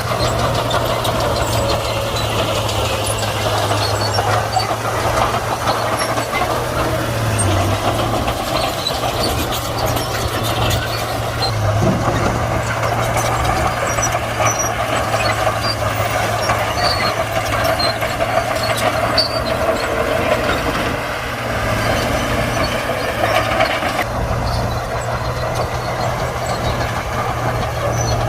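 Komatsu D41P crawler bulldozer's diesel engine running steadily under load while pushing soil, with short metallic clanks and knocks from the machine and its tracks.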